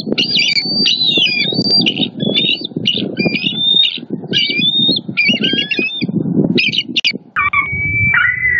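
Bald eagles calling: a fast series of high, piping chirps and whistles with short falling glides, over a low rough rumble. Near the end the sound cuts to a new run of calls, including longer whistles that slide downward.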